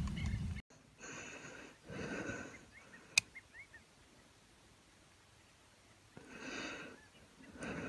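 Soft breathing close to the microphone, a few slow breaths, while aiming an air rifle through a scope. A faint single click about three seconds in. A low rumble cuts off suddenly just after the start.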